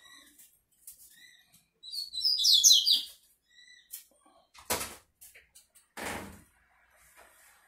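Double-collared seedeater (coleiro) singing one rapid, high warbled phrase of about a second, with a few faint single chirps around it. Two short rustling knocks follow later on.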